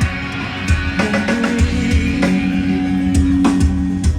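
Background music: a song with a steady drum beat and a held bass line.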